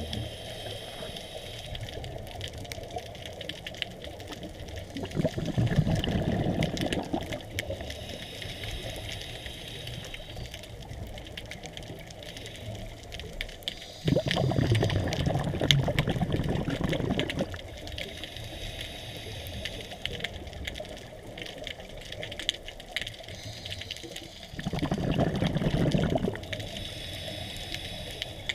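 Scuba diver breathing through a regulator underwater: quieter hissing inhales alternate with three long rushes of exhaled bubbles, each two to three seconds long and about ten seconds apart.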